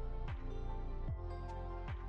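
Background music with a steady, deep electronic kick drum beat under sustained notes.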